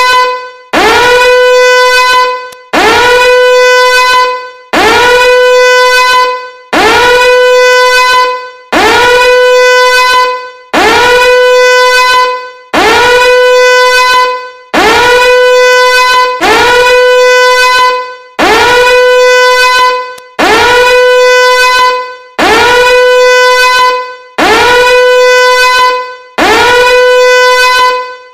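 Loud, horn-like alarm tone repeating about every two seconds. Each blast slides up in pitch into a steady held note, lasts just under two seconds, then cuts off.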